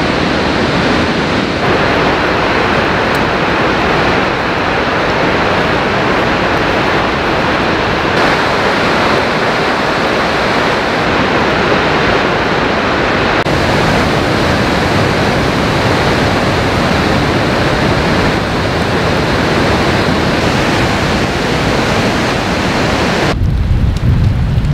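Steady roar of the Genesee River's Upper and Middle Falls pouring into the gorge. Near the end it gives way to a low rumble of wind on the microphone.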